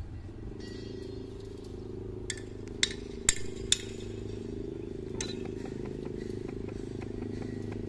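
Distant CC201 diesel-electric locomotive idling, a steady low drone, with four or five sharp metallic clinks around the middle, the loudest close together a little under three to four seconds in.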